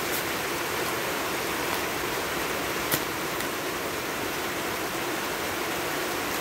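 Steady rain falling, an even hiss, with a single light click about three seconds in.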